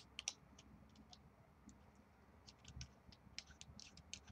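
Faint, scattered small clicks of a plastic flashlight bike mount being handled and fiddled with, sparse at first and coming more often in the second half.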